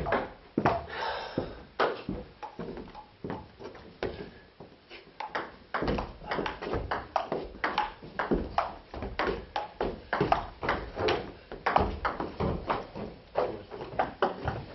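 Table tennis ball clicking off bats and bouncing on the table: a few scattered hits in the first seconds, then a fast rally of several hits a second from about five seconds in.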